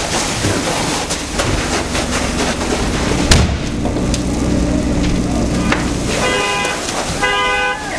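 Cars burning under a carport: a steady rumble of flames and hose spray full of crackles and pops, with one sharp pop about three seconds in. Near the end a vehicle horn sounds in two short blasts.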